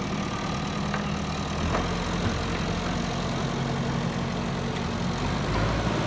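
JCB backhoe loader's diesel engine running steadily at low revs, its pitch shifting slightly about two seconds in and again near the end.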